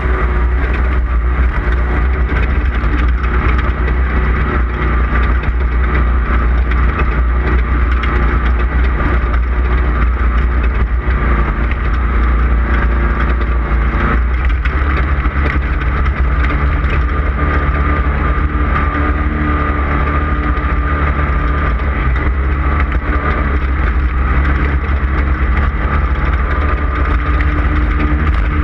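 Off-road race vehicle's engine running hard at speed, a loud, steady drone with a heavy low rumble. It briefly changes pitch about halfway through.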